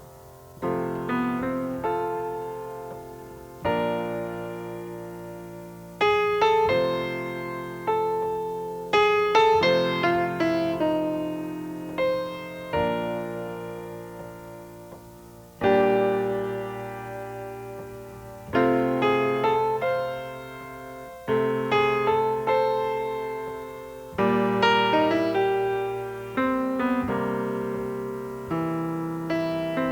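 Solo piano music played at a slow pace: notes and chords are struck and left to ring and fade before the next ones.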